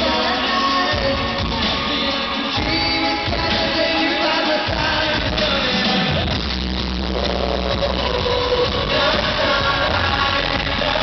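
Pop vocal group singing live over loud, amplified backing music, heard from within the audience of a large arena hall. The heavy bass comes in solidly about five seconds in.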